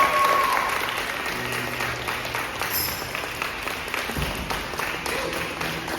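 Audience applauding at the end of a song, slowly dying down, while the last held note of the song fades out in the first second.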